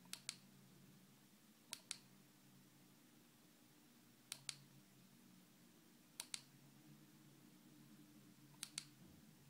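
Five crisp double clicks, a push button on a Fly6 bicycle tail light being pressed and released, spaced about two seconds apart as it steps through its light modes. A faint low hum runs underneath.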